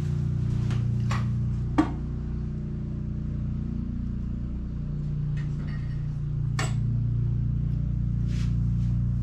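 Steady low mechanical hum in a garage workshop, with a sharp knock about two seconds in and another click near seven seconds as epoxy pump dispensers on a shelf are handled.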